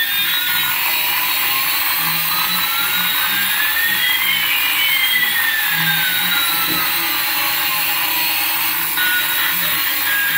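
Small toy RC helicopter's electric motor and rotor whirring in flight, a steady buzzy whine, with one tone slowly rising and another slowly falling over several seconds.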